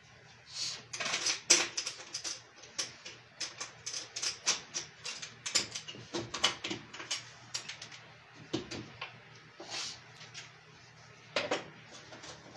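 Hand tool clicking and scraping on the fixings of a three-phase electricity meter as it is tightened into its mounting: an irregular run of sharp clicks with a few longer scrapes.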